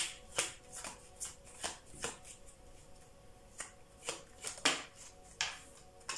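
A deck of tarot cards being shuffled in the hands: a string of short, crisp card slaps, irregularly spaced at about two a second.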